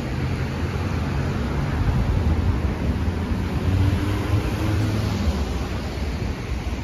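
City street traffic on a wet road: car engines rumbling and tyres hissing on the wet pavement, with one vehicle passing closer around the middle.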